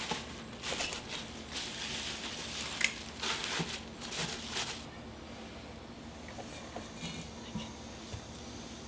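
Fresh pumpkin leaves rustling and crinkling as they are pressed by hand into a stainless steel steamer basket, in quick bursts for about the first five seconds, then fainter with a few small ticks.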